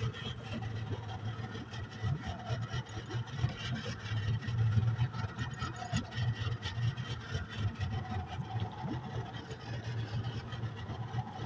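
Small boat's outboard motor idling steadily, with scattered light knocks and clatter on the boat.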